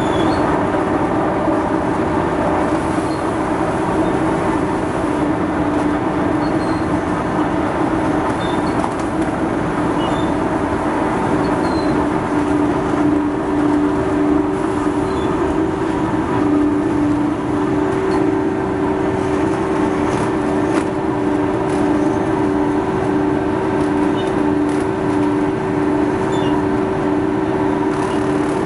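Textile waste tearing machine running: a loud, steady mechanical din with a steady hum that takes on a regular pulse, a little faster than once a second, about halfway through.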